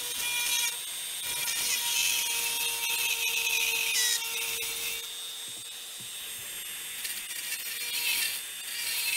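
Dremel rotary tool with a small drill bit running at high speed, a steady motor whine with scratchy rasping as the bit cuts into a foam taxidermy form. The cutting sound eases off a little past the middle and picks up again near the end.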